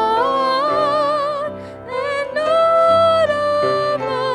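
A woman singing a song with piano accompaniment, her voice high and clear through a microphone, with vibrato on held notes; the longest note comes about halfway through, after a brief dip.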